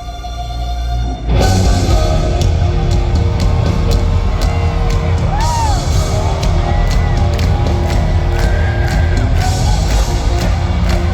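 Live gothic rock band music: a quieter, droning intro gives way about a second in to the full band coming in loudly. Crowd whoops and whistles are heard over it.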